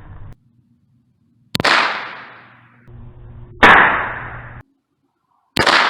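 Three shots from an AR-15 pistol firing .22 LR through a conversion kit, spaced about two seconds apart. Each is a sharp crack with a fading echo, and the middle shot is the loudest.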